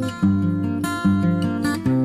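Background music: acoustic guitar strumming chords, with a fresh strum about once a second.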